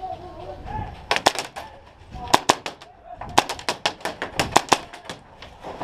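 Airsoft guns firing: several strings of sharp pops, the densest running about seven shots a second for over a second.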